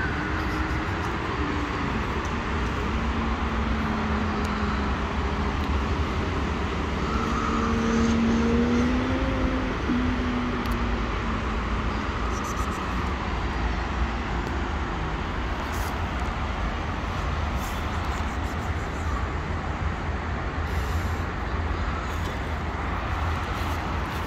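Steady road traffic noise, with a vehicle passing and growing a little louder about eight seconds in.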